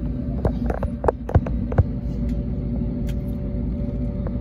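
Airbus A320 cabin noise heard from a window seat while the airliner moves on the ground: a steady low engine rumble with steady hums. A quick run of sharp knocks comes about one to two seconds in, and a single knock near the end.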